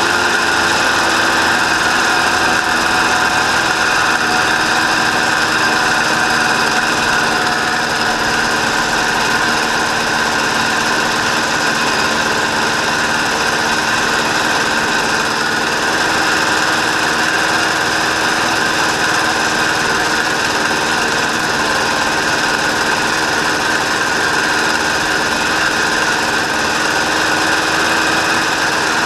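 Honda Odyssey FL350R buggy's single-cylinder four-stroke engine running steadily under way, its pitch and loudness nearly constant throughout.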